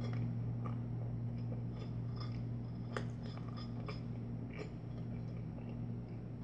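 A person chewing a bagel with cream cheese: scattered small mouth clicks over a steady low hum.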